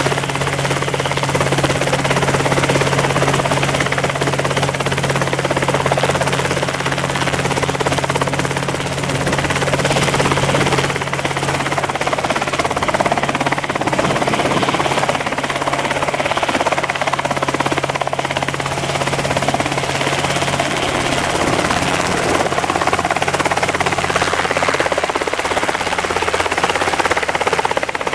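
RotorWay Exec 90 kit helicopter running steadily: an even engine and rotor drone with a constant low hum, mixed with gusty wind noise on the microphone.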